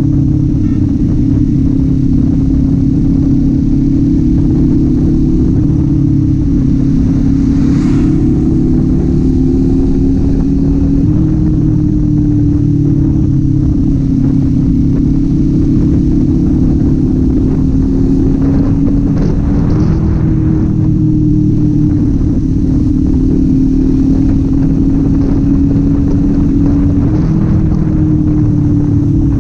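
Kawasaki Z400's parallel-twin engine and exhaust running steadily while riding, its pitch rising and falling gently with the throttle.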